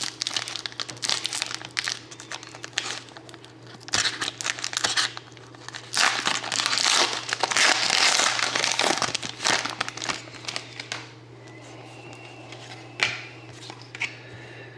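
Plastic wrapping of a hockey card box and its packs being torn open and crinkled by hand, in busy bursts for about eleven seconds, then a few light clicks and rustles.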